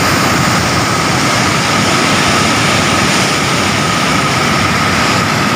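A river in flood after heavy rain, its muddy water churning fast over a weir: a loud, steady rushing of white water.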